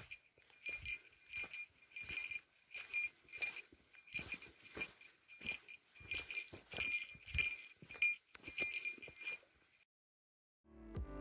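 A small metal bell jingling in a steady rhythm, about twice a second, then stopping shortly before the end. Music starts right at the end.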